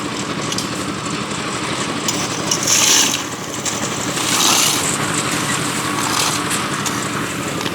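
Concrete mixer machine's engine running steadily, with two louder rushing surges about two and a half and four and a half seconds in.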